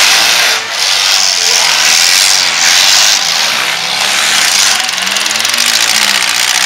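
Engines of several four-cylinder compact demolition-derby cars revving together, loud and unsteady, their pitch rising and falling.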